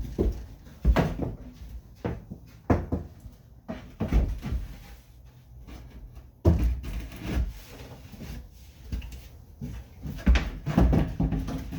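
Wooden floor boards knocking and thumping against the boat's floor supports as they are set in and shifted to test the fit: irregular knocks, the loudest about six and a half seconds in and again about ten seconds in.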